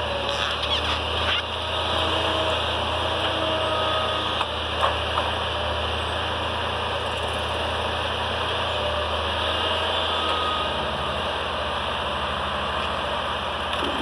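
Ecolog 688E forestry harvester's diesel engine running steadily, with a faint whine that rises and falls as the crane and harvester head work; its low note shifts about ten seconds in. A few sharp clicks in the first second or so and a sharp knock about five seconds in.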